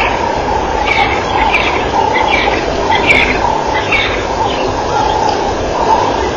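Short high chirping calls, repeating about twice a second, over a loud, steady rumbling noise.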